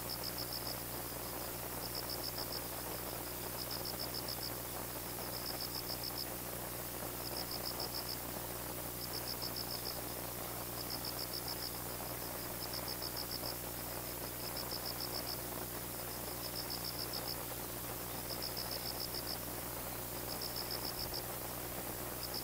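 An insect, most likely a cricket, chirping in short pulsed trills about every two seconds, over a steady low hum.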